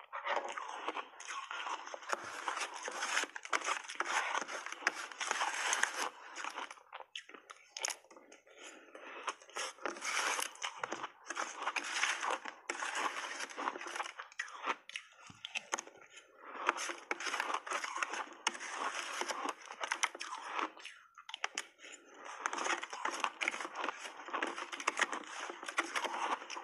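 Crunching and chewing of refrozen crushed ice mixed with milk powder, close to a clip-on microphone. Long runs of dense crackling crunches are broken by three short pauses.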